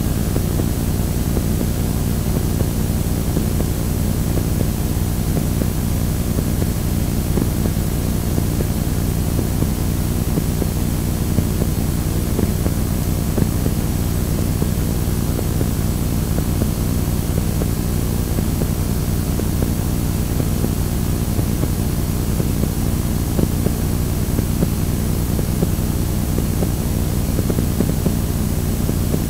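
Static from playback of a blank Scotch Hi-Fi T-120 VHS tape: a steady, unchanging noise, heaviest in the low end, with a faint steady hum running through it.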